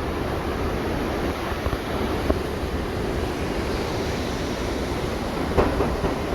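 Hurricane-force wind blowing hard, a steady rushing noise, with a couple of brief knocks partway through.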